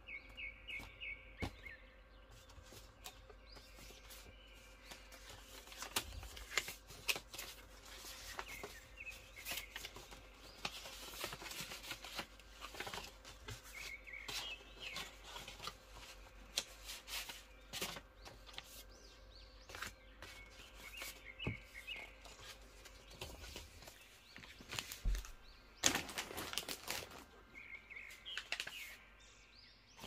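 Paper cards and banknotes rustling and tapping as they are handled, with birds chirping briefly every few seconds in the background.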